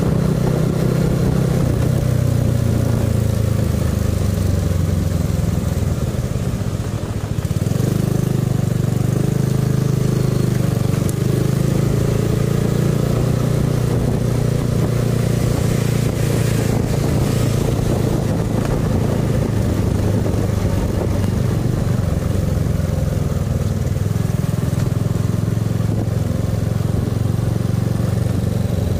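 Motorcycle engine running under way at road speed. The engine note eases off about seven seconds in, then picks back up and holds steady.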